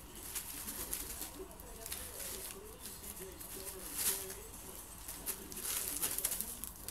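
Plastic bubble wrap crinkling and crackling in irregular bursts as kittens scramble and pounce on it, with a feather toy rustling over it. A faint low wavering voice-like sound runs underneath.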